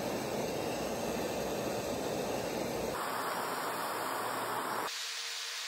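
Gas torch flame hissing steadily; the sound changes abruptly about halfway through and again near the end, turning thinner each time.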